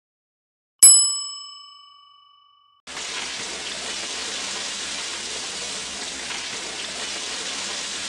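A single bell-like notification ding that rings and fades away, then, about three seconds in, a steady sizzle of flour-coated chicken breast pieces frying in oil in a wok.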